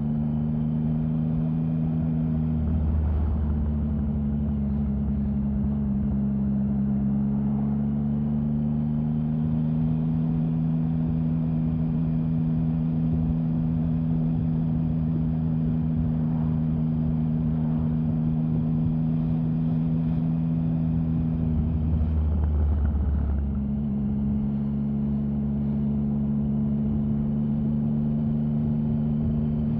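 Triumph Sprint 1050's three-cylinder engine running at a steady engine speed, with its note briefly changing twice, about three seconds in and again about twenty-two seconds in.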